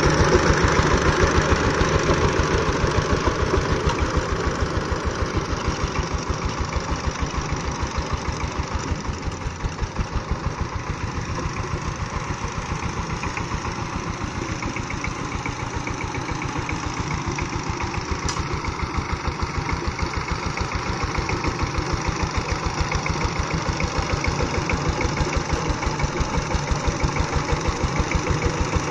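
Two-wheel walking tractor's single-cylinder diesel engine running steadily with a rapid, even chugging beat while its rotary tiller churns the soil. It is louder at the start, fades somewhat around the middle and grows louder again near the end.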